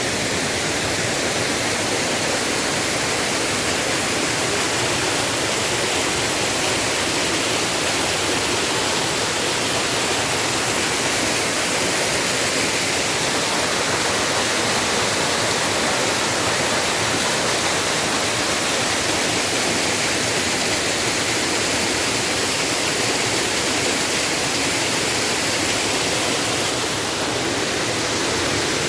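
Waterfall rushing loudly and steadily, a dense roar of falling water.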